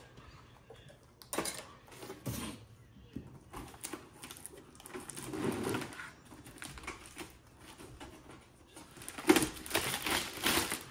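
Unpacking noises: scattered clicks, knocks and rustling as the air fryer oven is opened and its packed parts and packaging are handled, with a louder run of rustling and knocks near the end.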